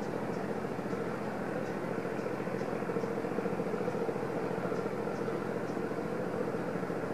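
Steady low mechanical drone, like a distant engine, with a hum that swells slightly in the middle, and faint short high chirps every half second or so.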